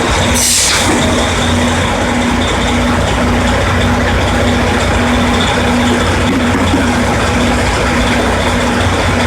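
Drilling rig's engines and machinery running loud and steady, with a short hiss of released air about half a second in and a faint tone that pulses on and off about once a second.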